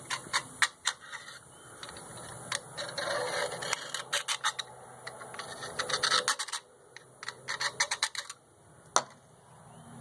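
Old gasket material being scraped and rubbed off the thermostat housing seat of a John Deere 2155 engine, in irregular bursts of scratching with many sharp clicks, so the new thermostat and gasket will seal.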